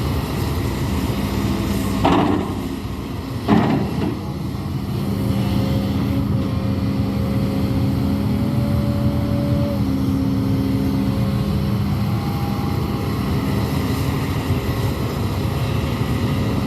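Hidromek 200W wheel excavator's diesel engine running steadily under work, with two sharp knocks about two and three and a half seconds in.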